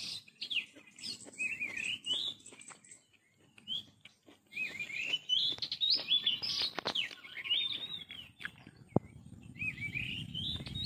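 Small birds chirping and twittering outdoors in quick clusters of rising and falling high notes, with a short lull a few seconds in.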